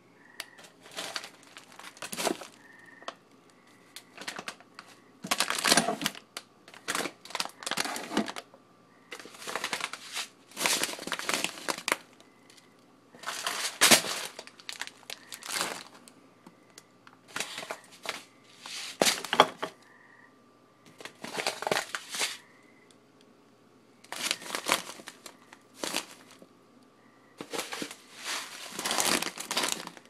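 Plastic food packaging crinkling and rustling as bags and containers are handled and shifted on pantry shelves, in repeated irregular bursts with short pauses between.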